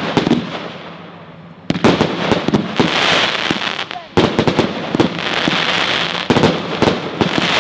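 Two Rubro fireworks cakes, the Event Grand Finale and the Event Cake No.5, firing at the same time. Volleys of sharp bangs start about two, four and six seconds in, and each is followed by dense crackling.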